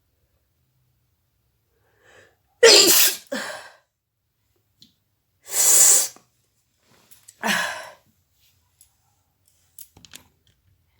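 A woman sneezing in three loud bursts about two seconds apart, the first in two parts. A few faint clicks follow near the end.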